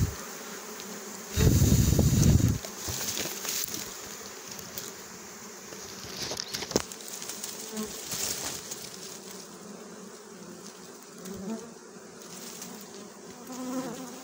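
Honey bees buzzing around a wild comb hanging in a bush. A loud low rumble on the microphone comes in about a second and a half in and lasts about a second.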